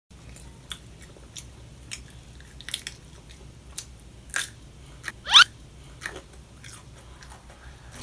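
A young child biting into and chewing raw cucumber, with crisp crunches at irregular intervals. About five seconds in comes a short rising squeak, the loudest sound.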